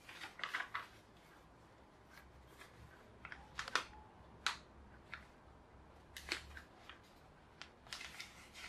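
Sheet of paper being folded and creased by hand: scattered short crinkles and rustles, with a few sharper crackles, the loudest about four and four and a half seconds in.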